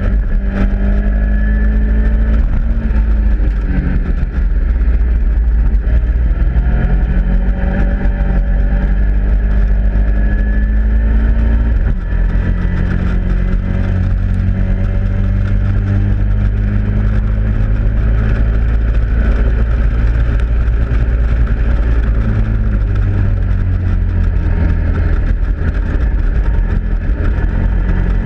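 Caterham Seven race car engine running hard at racing speed, recorded from the car's own open cockpit, its pitch stepping up and down several times as the driver brakes and shifts gears through the corners.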